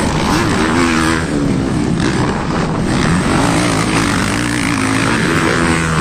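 Motocross racing motorcycles in the MX1 class racing past, their engines revving up and down as the riders accelerate through the turns.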